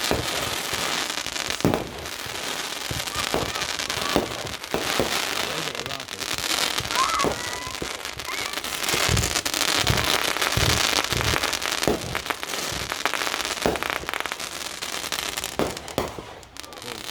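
Fireworks going off: a dense crackle throughout, with sharp booms at irregular intervals, thickest about halfway through.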